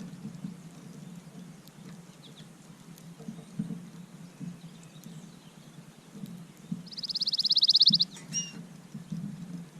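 A songbird sings one rapid, even trill lasting about a second, growing louder, about seven seconds in, followed by two short high call notes.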